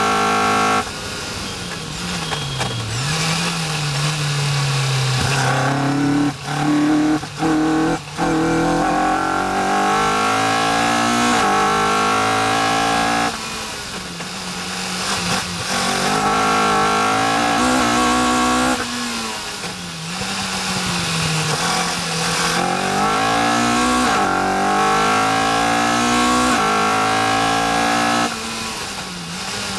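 Caterham R400 engine heard from the cockpit at racing pace, its pitch rising as it accelerates and dropping at each gearchange and lift for the corners. Three quick breaks in the sound come between about six and eight seconds in, and there are further lifts partway through and near the end as the car brakes.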